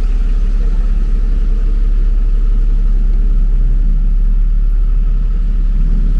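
Street traffic: cars running past with a steady low rumble.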